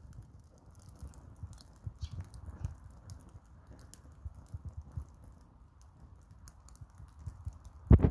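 A fire burning in a small grill, crackling with irregular small pops and ticks over a low rumble of flame. One sharper knock comes near the end.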